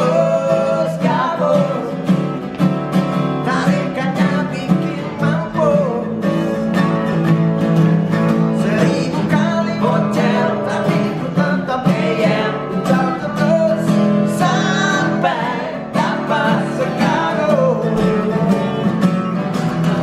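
Two acoustic guitars strummed together while men sing an Indonesian-language song.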